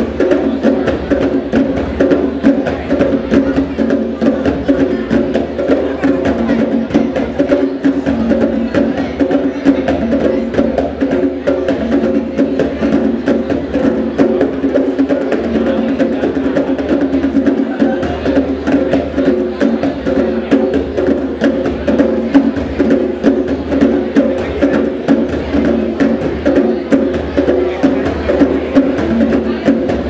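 Several djembes played by hand together in a steady, continuous rhythm of dense strokes.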